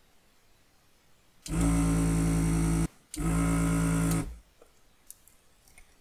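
Vacuum pump of an Aoyue 474++ desoldering station running in two steady humming bursts of about a second each, with a short break, as the desoldering gun sucks molten solder off a capacitor's leads on a circuit board. A few faint clicks follow.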